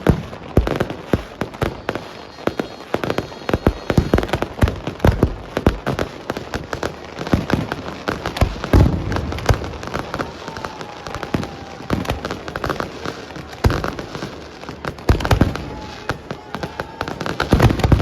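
Fireworks and firecrackers going off in a dense, irregular barrage of bangs and cracks, several a second.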